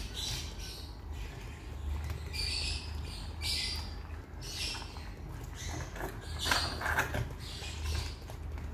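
Wet squelching and tearing as the gills and innards of a large raw tuna are pulled out by hand, in a run of irregular short bursts that are loudest about two-thirds of the way in. A low steady hum runs underneath.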